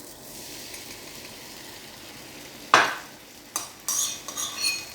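Beaten egg frying in a hot pan with a steady sizzle. About three seconds in there is one loud, sudden noise, then several metallic clinks and scrapes of a utensil against the pan.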